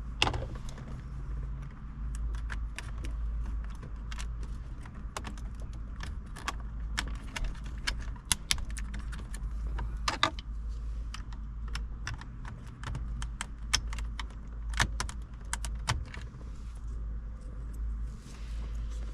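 Irregular small clicks and taps as BMW F10 climate control button caps are pried off the panel with a pry tool, over a steady low hum.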